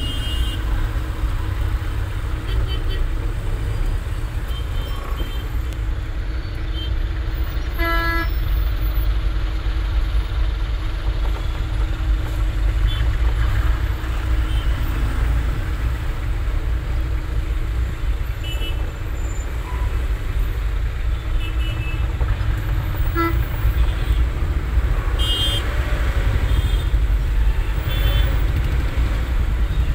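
Steady low rumble of a car's engine and road noise heard inside the cabin in slow traffic, with short vehicle-horn toots several times, the clearest about eight seconds in and a few more near the end.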